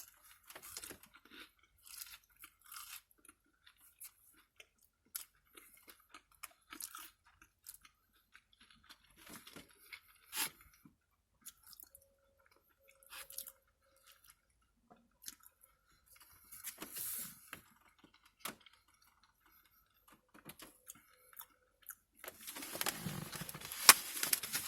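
A person chewing and biting crunchy takeout food close to the microphone, with scattered crisp crackles. A louder burst of noise comes near the end.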